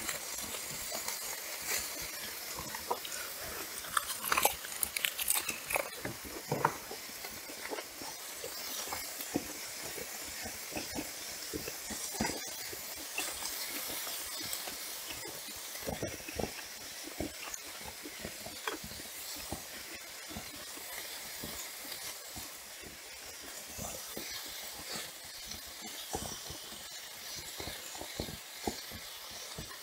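Close-miked chewing and biting of food: many short, wet mouth clicks, with a louder run of bites about four to six seconds in. A steady sizzling hiss runs underneath.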